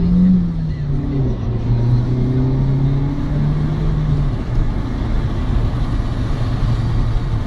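Car engine running with tyre and road noise, heard from inside the cabin while driving; the engine note shifts up and down a little as the speed changes.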